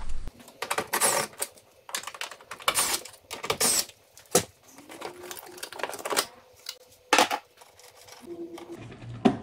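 Plastic ECU box cover in the engine bay being unclipped and lifted off: a string of irregular sharp clicks, snaps and short scraping rattles of plastic on plastic.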